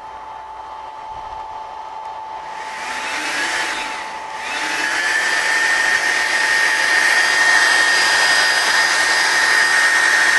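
The twin cooling fans of a GX-E-CS2 high-pressure air compressor switch on while the pump stays off. They start about two and a half seconds in, drop out briefly near four seconds, then spin up again into a steady whir with a rising whine that levels off. Underneath is the steady hum of the power supply converter.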